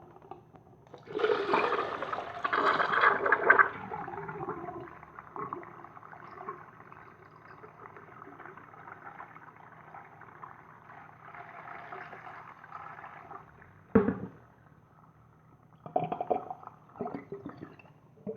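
Clay toilet flushing: a loud rush of water starts about a second in, then water keeps running and gurgling down the drain for about ten seconds. A sharp knock comes near the end.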